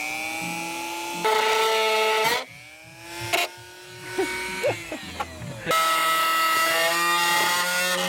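Dremel rotary tool with a cut-off wheel cutting carbon fiber: a high motor whine that rises as it spins up and sags and recovers under load. A louder, harsher grinding comes in at about a second in and again from the middle on, while the wheel is biting into the panel.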